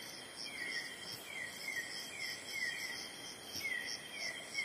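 Night insects in tropical forest before dawn. A cricket-like chirping pulses about three or four times a second against a steady high-pitched insect drone. A second caller gives short falling chirps in twos and threes.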